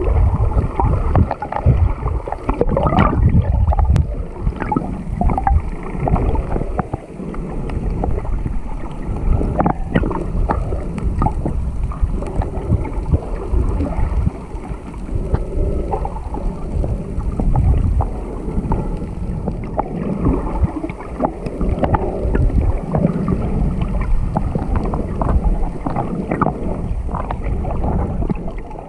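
Water rushing and sloshing around an underwater camera held on a pole: a muffled, uneven rumble full of small crackles and clicks.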